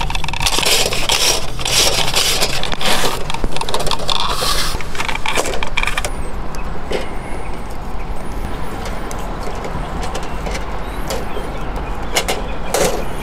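Steel fish tape rattling and scraping as it is fed and pulled through PVC conduit, with clicks from handling the reel and the taped wire ends. Busy for the first half, then quieter.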